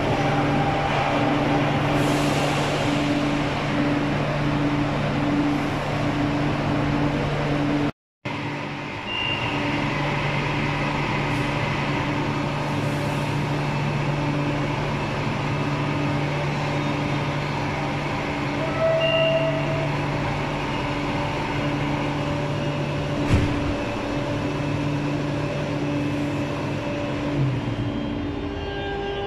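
CAF series 8400 metro train standing at an underground platform, its onboard equipment giving a steady hum with a pulsing tone, and a few short beeps over the echoing platform noise.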